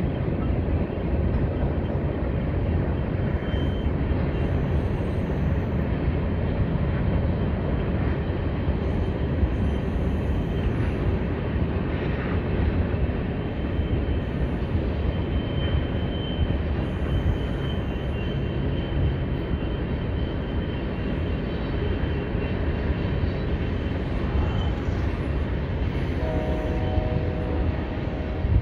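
Freight train cars rolling past on the rails: a steady rumble of wheels on track, with a faint high wheel squeal now and then.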